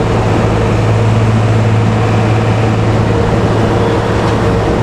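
Intercity bus's diesel engine running steadily at cruising speed, heard inside the cabin with road noise: a loud, even low drone with a steady higher hum.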